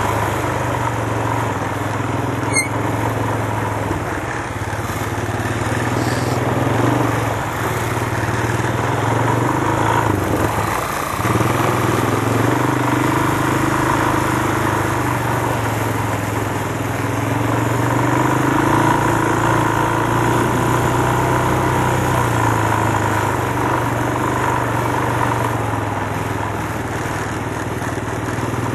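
Quad (ATV) engine running steadily while riding, its pitch rising and falling a little with the throttle, over a constant rush of noise. A single sharp click about two and a half seconds in.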